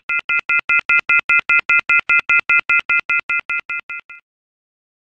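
Electronic intro beeping: a chord of steady tones pulsed about five times a second, growing louder, then fading and stopping a little after four seconds in.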